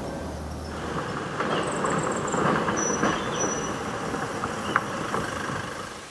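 A vehicle passes close by, its low engine hum giving way about a second in to a loud metallic rattling clatter with a few brief high squeals, the sound of a vehicle crossing a steel truss bridge.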